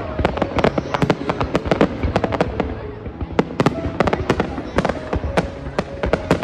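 A fireworks display: a dense, continuous run of sharp bangs and crackles, several a second and overlapping.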